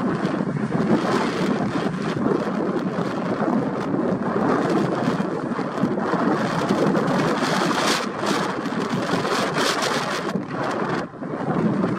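Steady roar of a McDonnell Douglas MD-11F's three Pratt & Whitney PW4460 turbofans on final approach, mixed with gusty wind buffeting the microphone.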